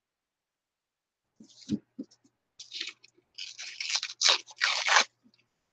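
Painted paper being handled and torn by hand: a run of crackly rustles starting about a second and a half in, loudest near the end, with a soft knock near the start.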